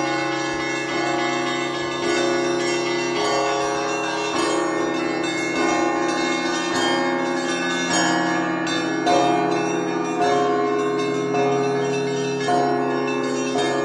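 Russian Orthodox monastery bells being rung, several bells together. The low bells hum on underneath, and new strokes come in a steady rhythm about once a second over the lingering ring of the earlier ones.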